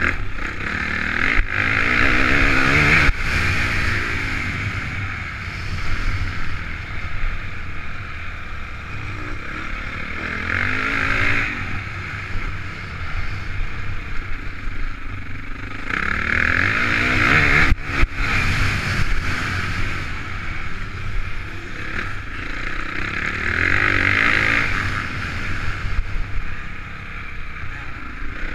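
Honda CRF450 motocross bike's single-cylinder four-stroke engine, heard through a helmet-mounted camera, revving up in four bursts of acceleration and easing off between them, with wind noise and a few sharp knocks.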